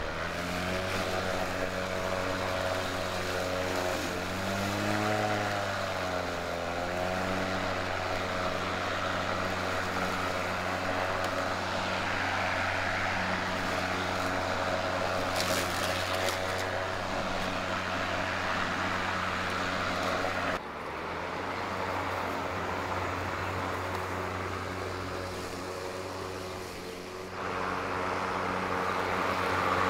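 Ryobi 40-volt brushless cordless push mower running and cutting grass: an even motor-and-blade hum that sounds like an industrial fan. Its pitch wavers for a few seconds about five seconds in, and the sound changes abruptly about two-thirds of the way through.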